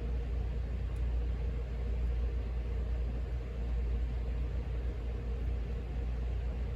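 Steady low background rumble with a faint, even hum, unchanging throughout; no distinct clicks stand out.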